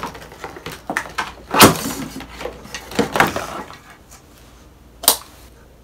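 A plastic toy egg and its clear plastic blister packaging being handled: crinkling and clattering plastic, with a sharp knock about a second and a half in, a few more around three seconds, and a single sharp click near the end.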